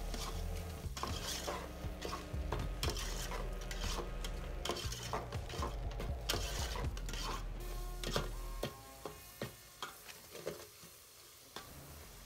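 A long spoon stirring and scraping minced meat with tomatoes and spices in a steel pot, with the frying mixture sizzling. The strokes come thick and fast for about eight seconds, then thin to a few scattered scrapes as the sound grows quieter near the end.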